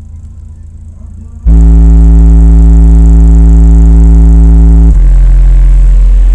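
Very loud, deep bass music from a powerful sound system. A sustained bass note cuts in suddenly about a second and a half in, changes to another deep note about five seconds in, and then starts to fade.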